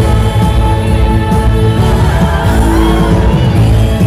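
A female singer sings a Korean song with vibrato, amplified through a loud PA over band backing with a steady bass beat.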